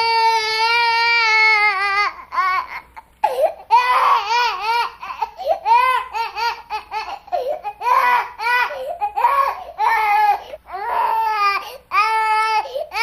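A young child crying: one long held wail for about two seconds, then breaking into a run of quick sobbing wails, each rising and falling in pitch.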